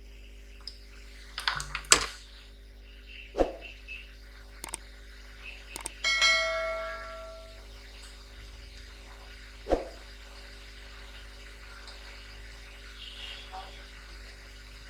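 Small clicks and knocks of tools and parts being handled on an electronics workbench, with one metallic ring about six seconds in that dies away over a second or so. A faint steady hum runs underneath.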